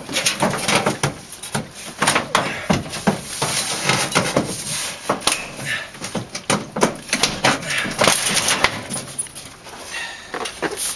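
Irregular knocks, clunks and clatter of hand work on an entry door and its frame, sharp impacts coming every fraction of a second to a second.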